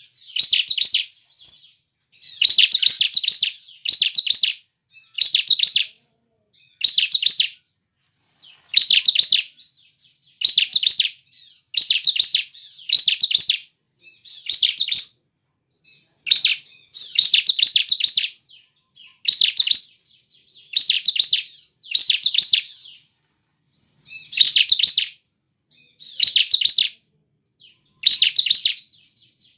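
A bar-winged prinia (ciblek) singing: short, loud phrases of rapid, buzzy chattering notes, repeated about once every second or so, with brief pauses between them.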